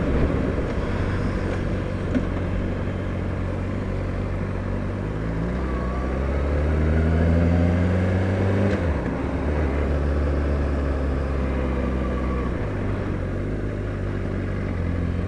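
Motorcycle engine running under a steady rush of wind and road noise. The engine note climbs gently for a few seconds, then drops abruptly about nine seconds in and holds steady.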